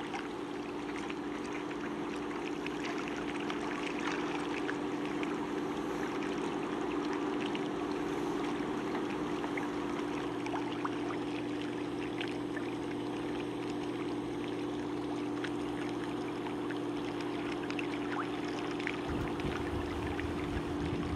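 Motorboat engine droning steadily at one pitch under way, with water rushing and splashing along the hull.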